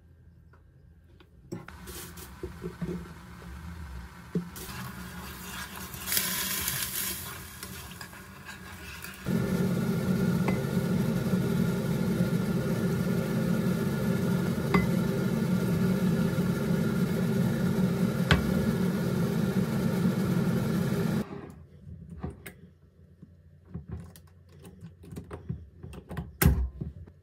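Kitchen sounds of making pickle brine: sugar poured into a pan of water and vinegar and stirred, then a loud steady stretch of hot brine poured over sliced cucumbers in a glass jar lasting about twelve seconds. Near the end come a few knocks and a sharp clack as the jar's clip-top lid is shut.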